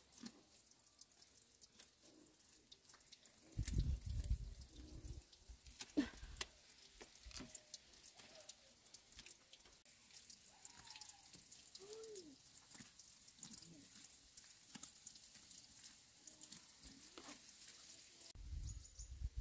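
Faint, irregular water drips and light clicks, with a brief low rumble about four seconds in and a faint short call near the middle.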